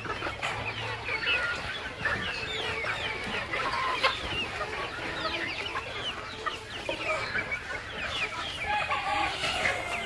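A large flock of free-range local chickens clucking and calling, many short overlapping calls at once. A single sharp click stands out about four seconds in.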